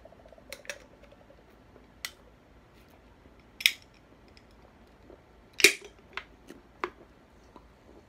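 A man gulping soda straight from a can, swallowing without a pause: a string of sharp, irregular clicks from his throat and the can, the two loudest about three and a half and five and a half seconds in.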